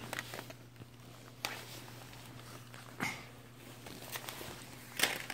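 A few scattered taps and rustles from handling old mobile phones picked from a pile and from shifting on the floor, over a faint steady low hum.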